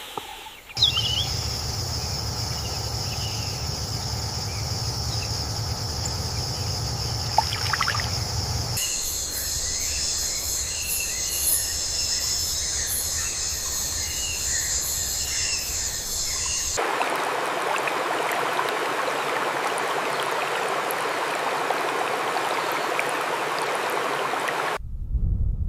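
Wild nature ambience in three edited stretches: a steady insect chorus over a low rumble, then a denser, higher insect buzz with scattered chirps, then an even rush of running water. Each change comes abruptly, about a third and two thirds of the way through.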